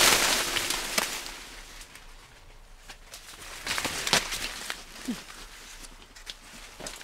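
Rustling of corn leaves and scuffling footsteps as people struggle among the corn plants, with a few sharper rustles and snaps about four seconds in. It opens on the tail of a loud noisy crash.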